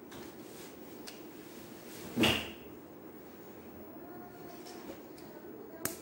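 Handling knocks from a satellite receiver's circuit board and case being fitted back together: one loud clack about two seconds in and a sharp click near the end, over a steady low hum.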